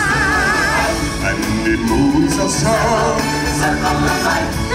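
Music with singing; a voice holds long wavering notes near the start, over a steady accompaniment.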